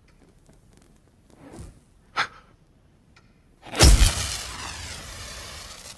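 A lighter flame struck, heard as a sudden loud whoosh about four seconds in that fades slowly over the next two seconds, after a short sharp click a little earlier.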